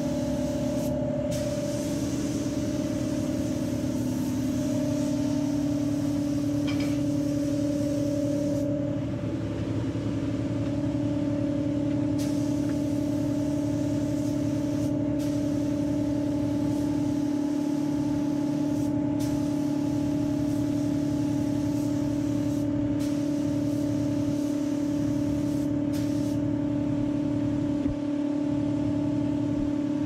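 Paint spray gun hissing as it lays high-build primer on a car panel over a steady machine hum. The hiss breaks off briefly about ten times as the trigger is let go.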